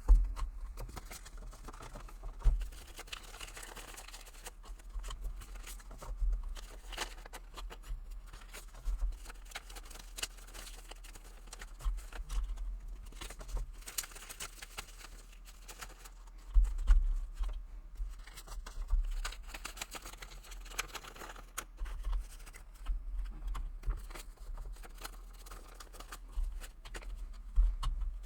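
Paper cash and envelopes being handled on a tabletop: soft rustling with irregular light clicks and frequent dull bumps.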